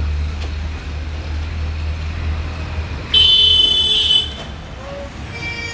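Low rumble of street traffic, with a vehicle horn honking once, loud and high-pitched, for about a second a little past the middle.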